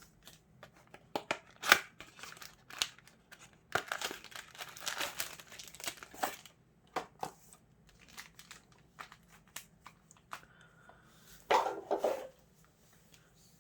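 Packaging of a Yu-Gi-Oh trading-card box being opened by hand. It crinkles and tears in a run of sharp crackles, densest about four to six seconds in, with a shorter loud rustle near the end.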